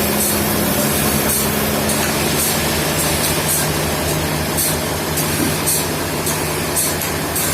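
Heavy engine running steadily at constant speed, with a faint high hiss repeating about twice a second.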